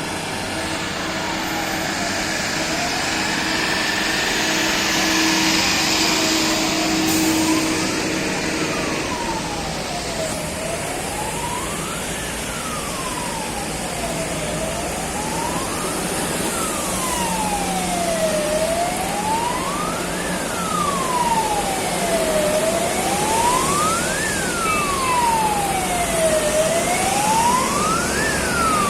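An emergency siren wailing, its pitch rising and falling slowly about every four seconds and growing louder over time, over a steady background hiss.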